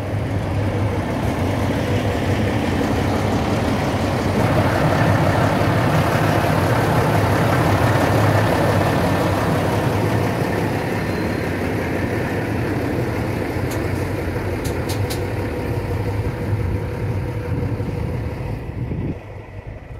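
Heavy truck engine idling with a steady low rumble; its level drops sharply about a second before the end.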